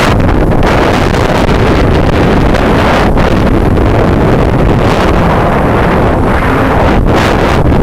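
Loud, steady rush of wind buffeting the microphone on a moving jet ski, mixed with the watercraft's engine and water noise.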